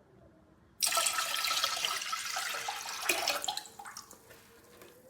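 Water running and splashing, starting suddenly about a second in and fading away after about three seconds.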